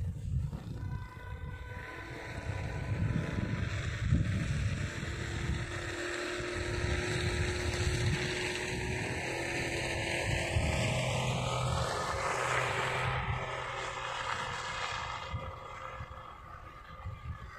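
A car passing on the snowy road: steady engine and tyre noise over a low rumble that swells and then fades towards the end.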